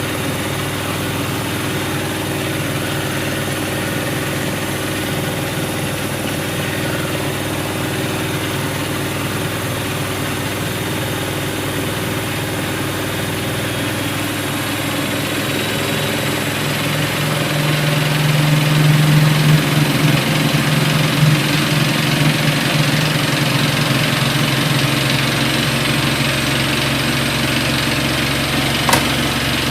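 Siemens Siwamat iQ washing machine running, its drum motor humming steadily with a mechanical whir. About halfway in the hum grows stronger and the running gets louder, as the drum works harder. One sharp click comes near the end.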